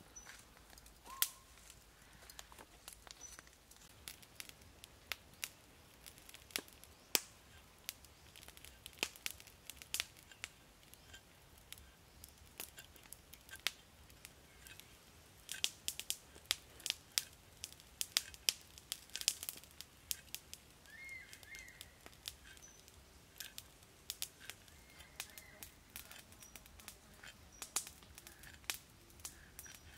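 Cleaver chopping fish on a wooden chopping block: sharp, irregular knocks, coming thickest partway through, with a few faint bird chirps.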